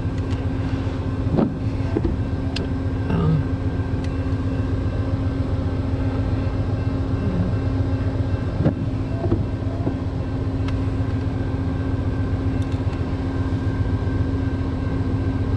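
Steady low engine hum with a constant pitched drone, heard from inside a car cabin; a few faint clicks.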